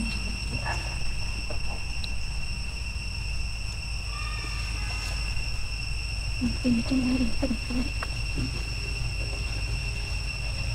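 Steady high-pitched insect drone throughout, over a low background rumble, with a few short, low vocal sounds about two-thirds of the way through.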